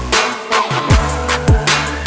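Electronic background music with a steady beat: deep kick drums that drop in pitch, hi-hats and a bass line, the bass dropping out briefly near the start.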